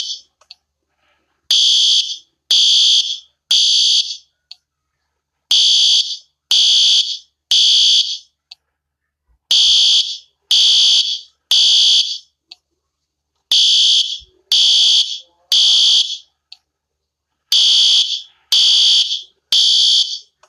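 Fire alarm sounding the temporal-three evacuation signal: high-pitched beeps in groups of three, about one a second, each group followed by a short pause, repeating five times.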